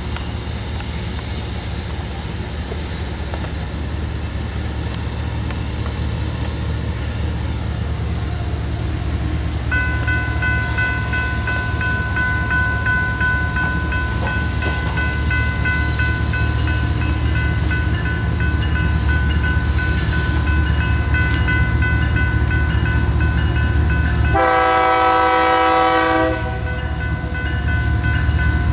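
Approaching BNSF diesel freight locomotives, their engines rumbling and growing louder. From about a third of the way in, the lead unit's Nathan Airchime K3LA three-chime horn sounds in long blasts with short breaks, and a short, louder, fuller blast comes near the end.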